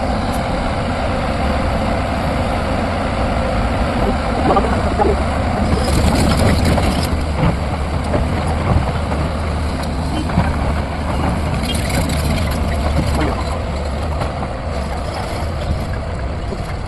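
Heavy lifting machinery's engine running steadily with a deep hum, with two short spells of hissing, about six and twelve seconds in.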